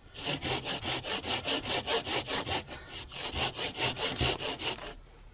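Hand saw cutting through a piece of firewood in quick back-and-forth strokes, about five a second, with a brief pause partway through. The wood is soaking wet inside.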